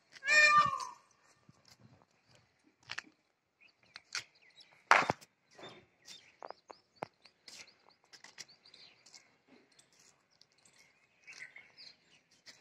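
Black Labrador whining up at someone above it: one high-pitched whine in the first second that drops in pitch at its end. Small scattered clicks and taps follow, with a sharp louder tap about five seconds in.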